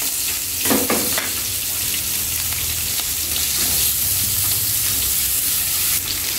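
Minced meat sizzling steadily in hot oil with fried garlic in a frying pan, just added and being stirred and broken up with wooden chopsticks, with light scraping against the pan.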